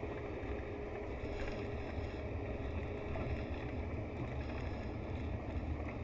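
Scania K124 IB coach's six-cylinder diesel engine running with a steady low drone.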